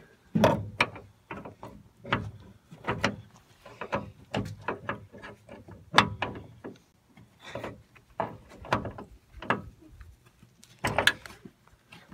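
Irregular metallic knocks and clanks, two or three a second, from parts being handled and worked inside a car's sheet-metal door.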